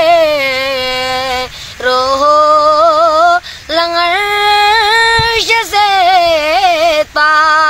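A boy singing a devotional qasida unaccompanied in a high voice, drawing out long notes with wavering, ornamented pitch. The line breaks off three times in short pauses.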